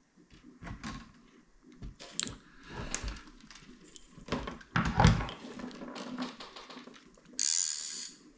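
Handling noises: a scatter of light taps and knocks from hands moving things on a wooden table and close to the camera, with a heavier knock about five seconds in and a short rustle near the end.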